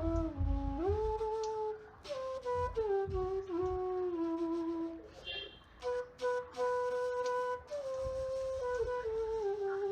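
Background flute music: a slow melody of held notes that glide from one to the next.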